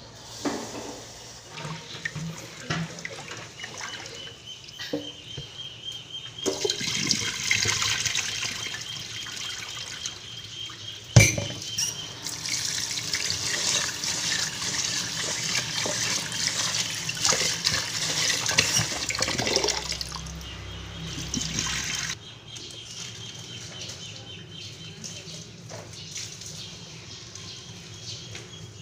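Tap water running into a metal rice-cooker pot in a stainless-steel sink while rice is rinsed by hand, with one sharp knock partway through. The water stops about two-thirds of the way in, leaving the softer swish of a hand stirring the rice in the water.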